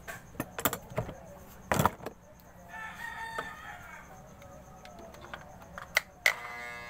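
A rooster crows once about three seconds in, amid sharp knocks and clicks from handling. Near the end an electric hair clipper clicks on and starts a steady buzz.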